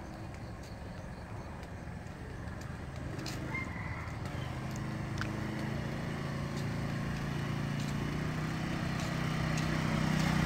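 Motor scooter engine running at low speed as it approaches, growing steadily louder, its steady tone rising out of the background about four seconds in.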